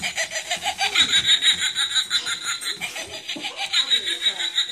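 A person laughing in a steady run of short chuckles.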